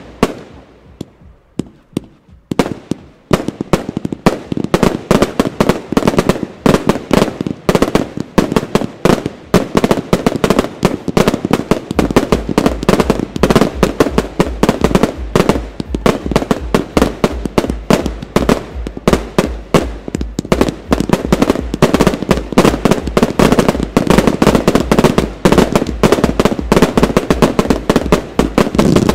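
Finale of a fireworks display: aerial shells bursting in a dense, rapid barrage of bangs and crackle. A brief thinning about half a second in ends near two and a half seconds, and the barrage then runs almost without pause.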